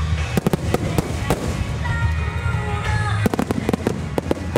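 Fireworks finale: rapid bangs of aerial shells bursting and rows of ground-level star-mine launches over a low rumble, with music playing. The bangs thin out in the middle and come thick and fast again after about three seconds.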